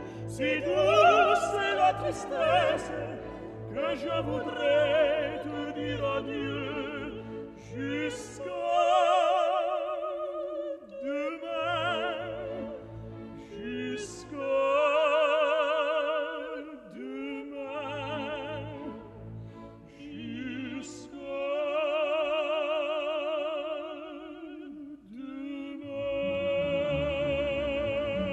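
Classical operatic singing with orchestra: a trained voice sings a series of long held notes with strong vibrato. The orchestra thins out under some notes and comes back fuller near the end.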